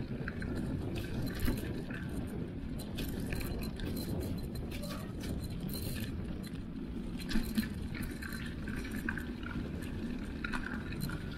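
Mountain bike riding along a dirt forest singletrack: a steady low rumble of tyres on the trail, with constant small rattles and clinks from the bike's chain and frame over the bumps.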